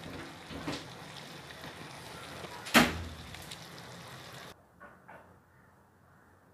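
Marinated chicken pieces and small onions sizzling in sesame oil in a clay pot, a steady hiss, with one sharp knock about three seconds in. The sizzle cuts off abruptly about four and a half seconds in, leaving only faint sound and a couple of light knocks.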